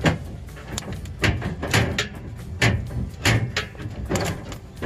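Hand wire stripper working on a wire end, making several sharp clicks and scrapes about a second apart as the insulation is gripped and pulled off.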